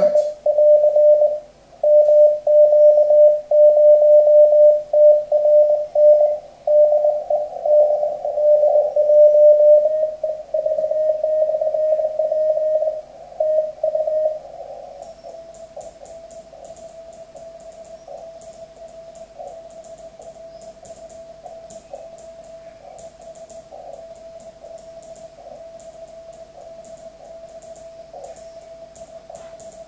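Morse code (CW) tone from an amateur radio transceiver on 40 m: one steady pitch keyed on and off in dots and dashes. About fourteen seconds in it drops to a fainter, more continuous tone over radio hiss.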